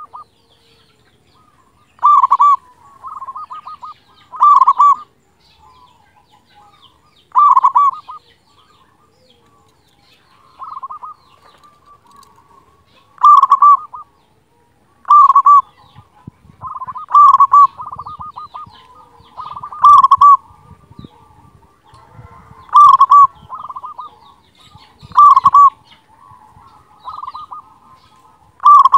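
Zebra dove (perkutut) singing: loud, ringing cooing phrases repeated about every two to three seconds, some joined by quick trilled notes.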